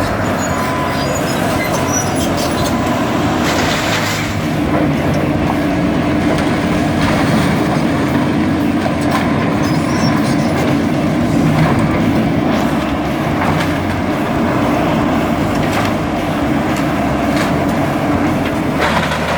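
Heavy demolition machinery working on the building: a steady engine rumble that grows louder about four seconds in, with scattered knocks and crunches of breaking material.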